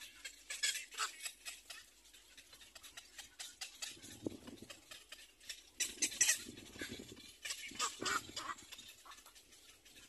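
Little black cormorant chicks in the nest giving harsh, raspy calls in several short bursts, the loudest about six seconds in.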